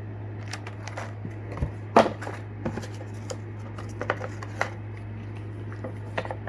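Fishing lures and their plastic packaging being handled and set down: a string of irregular clicks and crinkles, the loudest about two seconds in, over a steady low hum.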